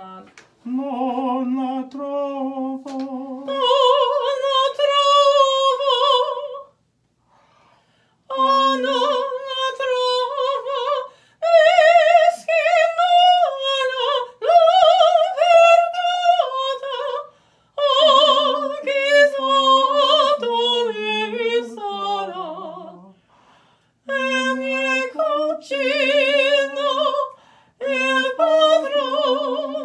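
A young woman singing an Italian aria in classical style, unaccompanied, with a clear vibrato. She sings in several phrases with short breaths between, and the small room adds a close echo.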